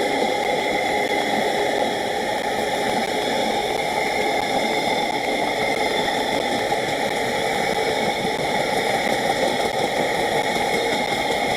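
Steady rushing noise with faint steady high-pitched tones above it, even in level throughout, with no distinct knocks or horn.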